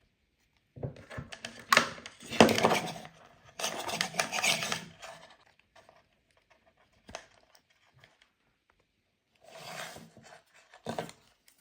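Small metal tools being handled: irregular clinks, rattles and scrapes in several short bursts, the busiest in the first half, with no motor running.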